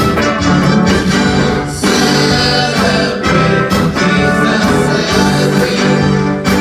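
Worship music playing: a full band with sustained chords and a singing voice.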